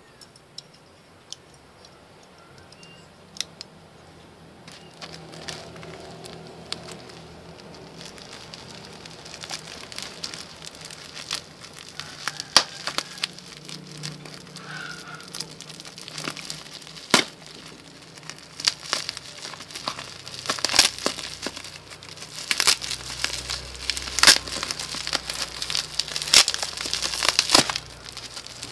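Plastic parcel wrapping and packing tape crinkling and tearing as a package is cut and pulled open by hand, with sharp crackles that get busier and louder over the second half.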